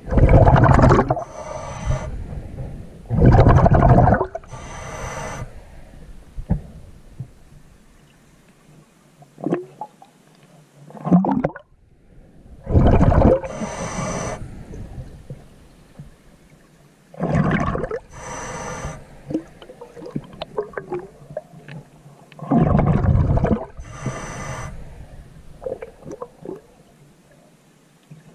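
A diver breathing underwater: loud bursts of exhaled bubbles gurgling past the camera every few seconds, with quieter breathing and water noise between.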